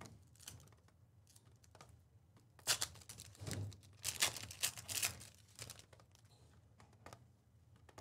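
Trading cards and their pack wrappers being handled: a few brief crinkling, rustling scrapes between about three and five seconds in, with faint small handling noises around them.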